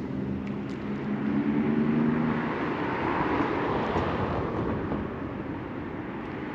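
A motor vehicle passing by: a low engine hum, then road noise that swells in the middle and fades away.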